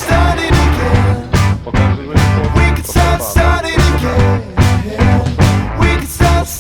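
Background rock music: a band with drums, bass and guitar playing at a steady beat.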